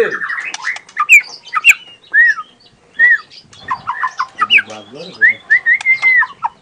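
Young wild-caught white-rumped shama (murai batu) singing: a varied run of clear whistled notes, several arching up and down in pitch, broken by quick bursts of short chattering notes. A brief lower, rougher sound comes about two-thirds of the way through.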